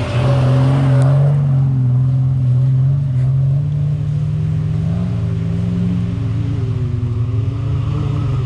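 Jeep Wrangler 4x4's engine running at low revs as it crawls over a forest slope, its pitch rising and falling a little.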